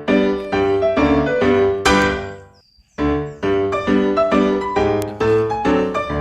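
Background music: piano notes played in a steady rhythm. About two seconds in, the notes fade out, there is a brief gap, and the music starts again about three seconds in.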